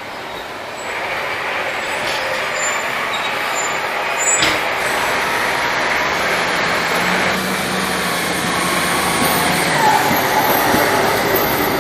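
Narrow-gauge train running past close by, its engine and wheel noise growing louder over the first few seconds. There is one sharp knock about four and a half seconds in.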